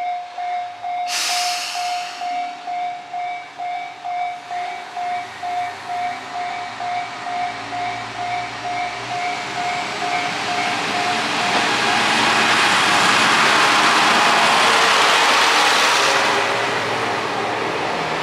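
Mizushima Rinkai Railway MRT300 diesel railcar pulling away, its engine and wheels growing louder as it accelerates past, loudest about three-quarters of the way through and then easing off, with a short hiss of air about a second in. A level crossing bell rings about twice a second through the first half, then stops.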